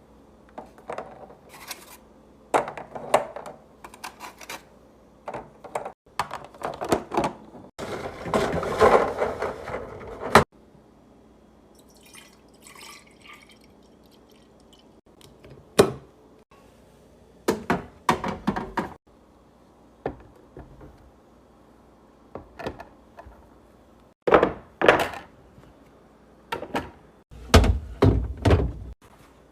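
Knocks and clatter of food containers being handled and set down while a fridge is restocked, in short clusters, with one continuous rustling stretch of about three seconds near the middle that stops abruptly.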